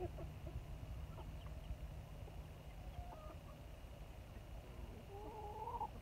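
Hens clucking softly while they forage: a few short clucks, then a longer wavering call about five seconds in.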